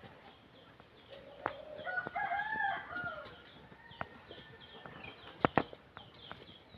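A rooster crows once, starting about a second in and lasting about two seconds, over a run of faint high chirps. A few sharp clicks are heard, the loudest a double click about five and a half seconds in.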